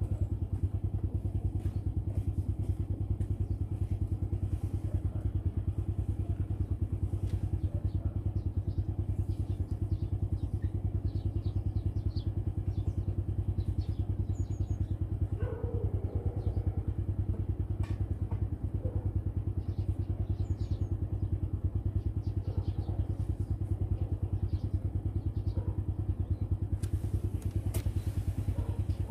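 An engine idling steadily, an even low throb that does not change.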